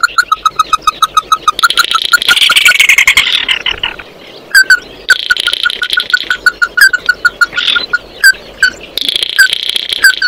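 Red-legged crake calling: a fast run of short, sharp notes about seven a second. The run breaks off for a couple of seconds, then starts again more unevenly, with a few louder notes. A hissing buzz comes and goes behind the calls.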